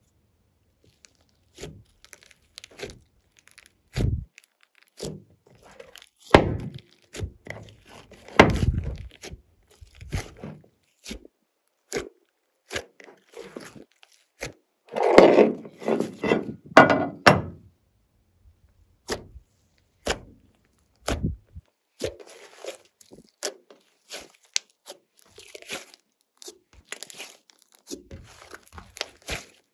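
Glossy slime being worked by hand: an irregular run of sticky clicks and pops, with a denser stretch of squelching about halfway.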